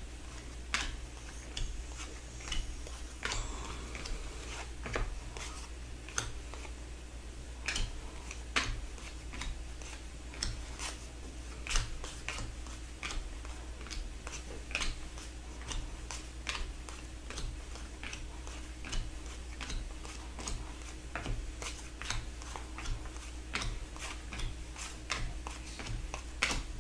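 2015/16 Upper Deck hockey cards being sorted by hand. Irregular soft clicks and taps, one or two a second, come as cards are flicked through and set down on a mat, over a steady low hum.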